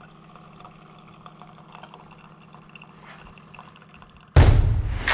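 A faint, steady low hum with a few light clicks, then near the end a loud, sudden booming hit that rings on and fades, with a second hit close behind it.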